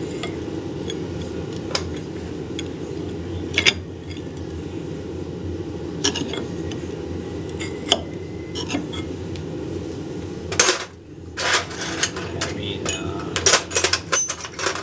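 Steel pry bars clinking and scraping against a milling-machine spindle sheave and its ball bearing as they are worked under the bearing to pry it up the shaft. Scattered sharp metallic clinks, busiest near the end, over a steady low hum.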